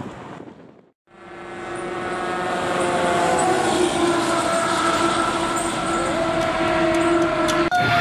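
Fire truck air horns sounding a long, steady chord of several notes, some of them sliding slowly in pitch. It starts after a brief silence about a second in and cuts off just before the end.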